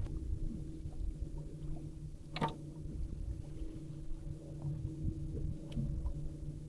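A boat's engine running steadily at idle, a constant low hum over a low rumble. A sharp click comes about two and a half seconds in, and a fainter one near the end.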